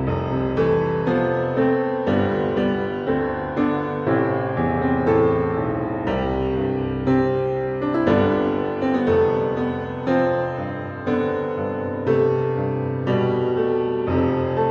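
Background piano music with notes struck at a steady pace.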